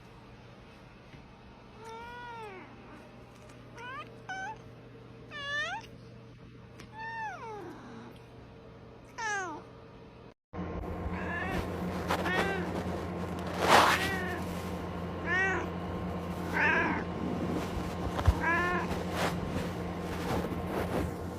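A cat meowing repeatedly, about a dozen short meows, each rising and then falling in pitch. About halfway through there is a cut, after which the meows are louder over a steady hum.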